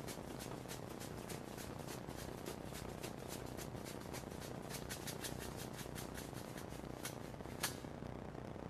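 Faint, even ticking, about four to five sharp clicks a second over a low hiss, that stops near the end.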